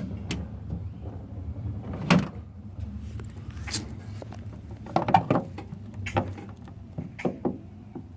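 Handling noise from a stiff container being opened and its contents moved about: irregular knocks, clicks and clunks, with a cluster about five seconds in, over a steady low hum.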